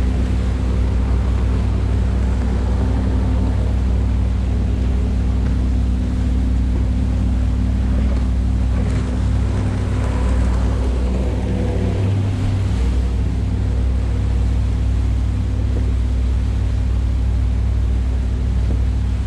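Sea Ray 330 Sundancer under way at cruise: the steady drone of its MerCruiser 7.4-litre (454) V8 inboard power, with water rushing along the hull and wind on the microphone.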